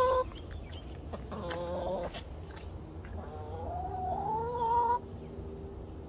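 Backyard hens making drawn-out calls: a short one about a second and a half in, then a longer one from about three seconds in that rises in pitch and stops near five seconds.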